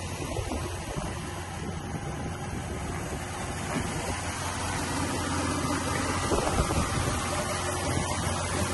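Volga GAZ-24 car engine idling steadily, growing louder about halfway through.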